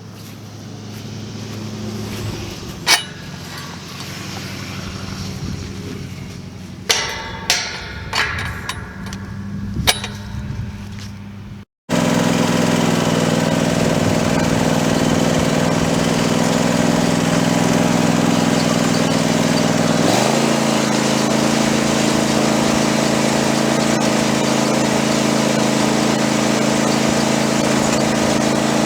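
A few sharp knocks over a low steady hum, then, after an abrupt cut, a small engine running steadily. About eight seconds later its speed steps up and it holds the higher pitch.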